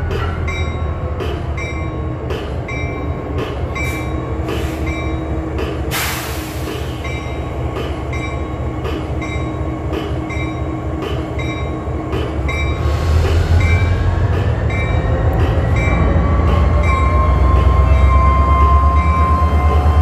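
Freight train of covered hopper cars rolling slowly past, with a steady low rumble and a bell ringing in an even rhythm. About six seconds in there is a brief loud hiss. From about thirteen seconds the rumble grows louder and the wheels squeal in rising and held tones.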